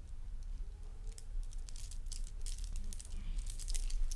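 Light rustling and quick small clicks of handling and movement, over a low steady room hum.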